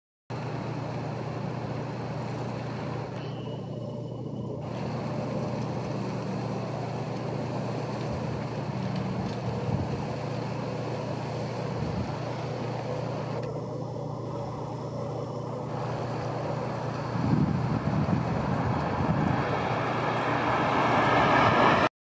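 Steady distant road traffic noise, a low rumble under an even hiss, growing louder over the last couple of seconds.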